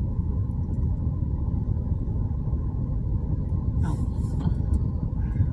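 Steady low rumble of road and engine noise inside a moving car's cabin, with a couple of faint clicks about four seconds in.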